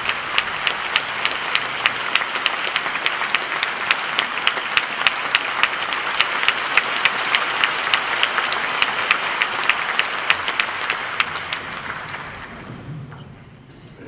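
Concert audience applauding, with sharp claps from someone close by standing out above the crowd. The applause dies away about twelve seconds in.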